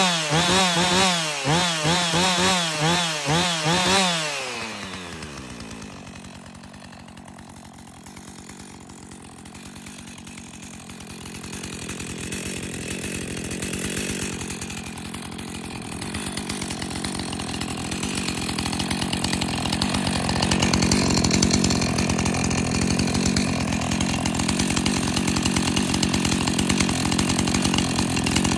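Two-stroke chainsaw running at high revs with its pitch wavering rapidly, then shut off about four seconds in, the engine note sliding down and fading. In the second half a steadier, lower running sound builds up and holds.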